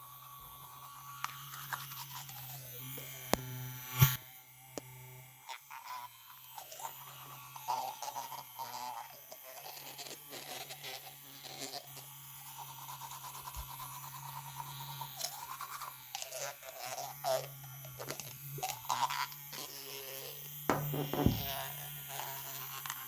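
Electric toothbrush motor buzzing steadily, with irregular scrubbing and scraping sounds over the buzz and a sharp click about four seconds in.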